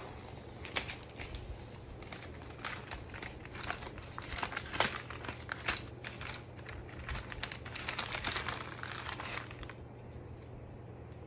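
Clear plastic resealable bag crinkling and crackling as it is handled and opened, in quick irregular rustles that stop shortly before the end.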